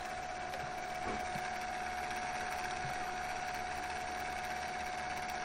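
Small electric draught fan on the chimney of a 2-inch scale Burrell traction engine model running steadily: a constant hum with one steady whine, drawing the fire while steam is raised.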